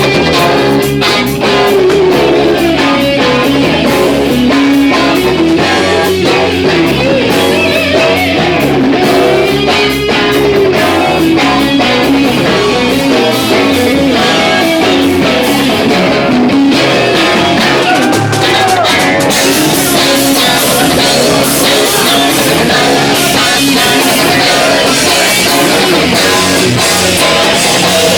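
Live rock band playing loud, with guitar and drums; the cymbals get louder about two-thirds of the way through.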